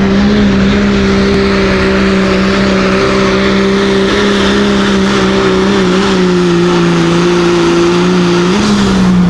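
Diesel pickup truck engine held at high, steady revs under heavy load while dragging a pulling sled. The engine note dips slightly near the end.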